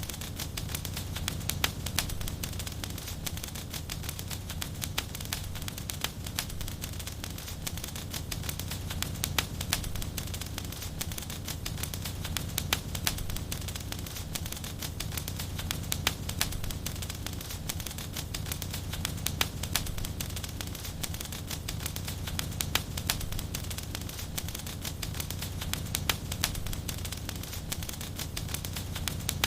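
Wood fire crackling in a fireplace: a continuous run of sharp pops and snaps, many each second, over a low steady rumble.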